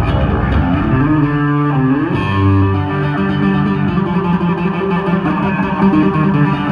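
Yamaha electric bass played solo through an amplifier. Notes slide up in pitch about two seconds in, then held, layered notes with fast changes follow, played with both hands on the fretboard.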